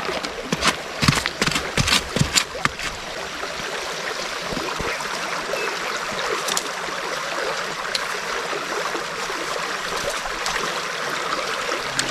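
Water running and splashing: several short splashes or knocks in the first three seconds, then a steady rushing hiss.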